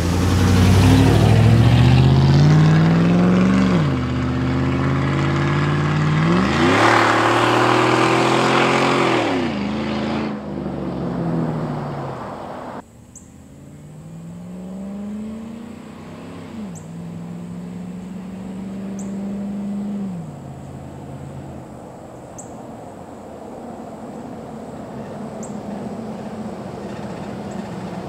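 Chevy Silverado V8 with long-tube headers and a catless Y-pipe accelerating from a stop, its exhaust note climbing in pitch through each gear and dropping back at the upshifts, about four and ten seconds in. Near the middle it turns abruptly quieter, climbs through two more shifts, then settles to a steadier run as the truck approaches.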